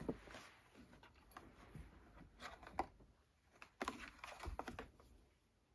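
Cat's paws and claws scratching and tapping on a cardboard tissue box while batting at a pompom toy poking through its holes: faint, scattered light clicks and scrapes, busiest about halfway through and again about a second later.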